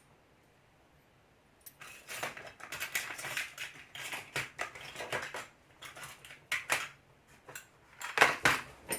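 Small metal lock parts and tools clicking and clinking as they are handled, starting after a short stretch of near silence and growing louder near the end.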